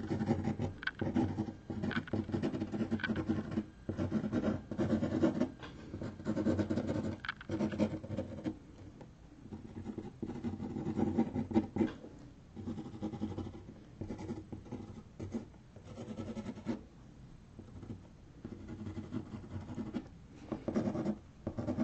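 Fine-tip permanent marker scratching rapid short strokes on a canvas board, in bursts with brief pauses.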